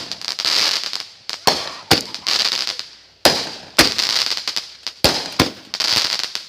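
Fireworks going off in a rapid string: sharp bangs about once a second, each followed by crackling that fades.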